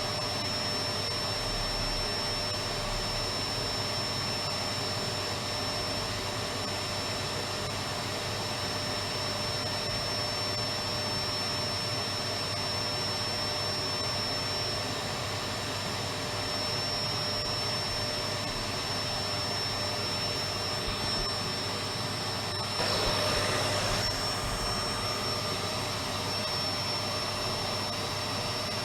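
Electric vacuum cleaner running steadily: a constant rushing hum with a thin high whine, swelling briefly louder about 23 seconds in.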